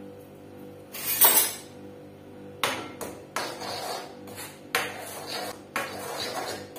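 Metal spoon stirring a wet spice mixture in a stainless steel bowl: a series of clinks and scrapes against the bowl's side, about six, the loudest and longest about a second in.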